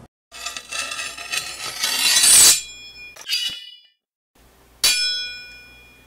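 Edited-in transition sound effects: a swell that builds for about two seconds to a peak and cuts off, a short hit, then, near the five-second mark, a sharp metallic clang whose ringing tones die away slowly.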